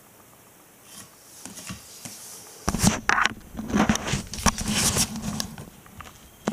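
Handling noise from a camera being picked up and moved: faint rustling from about a second in, then loud scrapes and knocks against the microphone for a few seconds before it settles.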